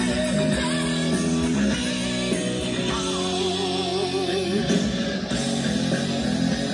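Rock song with a singer and guitars playing through the built-in speakers of a Sharp GF-9000 stereo radio cassette recorder.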